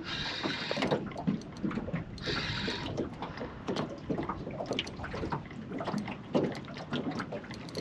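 Water splashing and sloshing at the surface close to a small boat, a run of irregular little splashes with two brief hissing swishes in the first three seconds.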